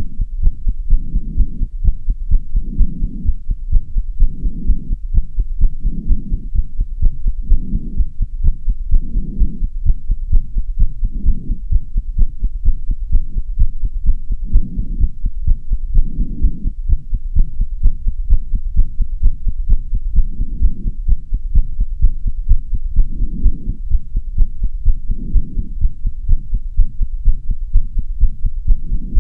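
A person's fast heartbeat after hard exercise: quick, regular thumps. Under them, heavy breathing rises and falls about every one and a half to two seconds.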